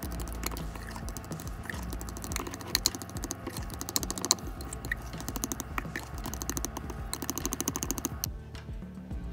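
Metal spoon stirring wet banana fritter batter in a glass baking dish: rapid clicking and scraping of the spoon against the glass. The stirring stops about eight seconds in, and music plays throughout.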